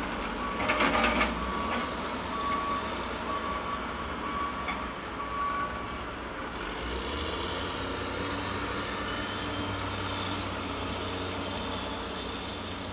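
Heavy equipment in a mulching yard running steadily, with a vehicle's backup alarm beeping at an even pace through the first half and a few sharp knocks about a second in. A higher hiss of machinery rises in the second half.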